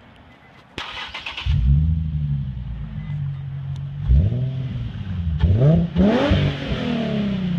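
Nissan 350Z's V6 exhausting through a Magnaflow dual-muffler catback, echoing in a parking garage: the engine cranks and catches with a flare about a second and a half in, settles to a deep idle, is revved once around four seconds in and then in quick rising blips about two seconds later before dropping back to idle.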